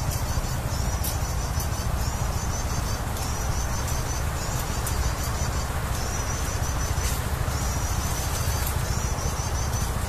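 Prinia (prenjak) song: rapid high chirping phrases repeated about every second or so, over a steady low rumble.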